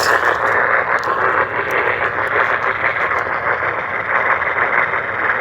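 Steady radio static hiss from a receiver, confined to a narrow mid-range band, with no voice or alert tones coming through.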